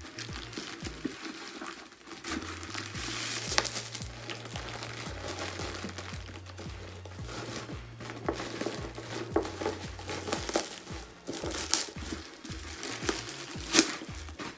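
Packaging being handled while a cardboard box is unpacked: crinkling and rustling with sharp crackles, the loudest about three and a half seconds in, near twelve seconds, and near the end. A low bass line from background music plays underneath.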